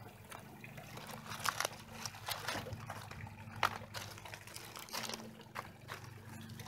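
Dry phragmites reed stalks and lashing string handled against a metal pipe: scattered scrapes and clicks over a steady low hum.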